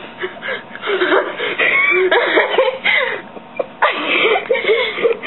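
Two girls laughing uncontrollably: high, breathy bursts of laughter broken by gasping breaths.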